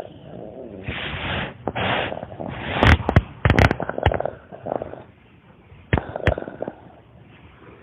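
Dog making odd breathy noises in short bursts, with a cluster of sharp clicks or knocks about three seconds in and two more about six seconds in.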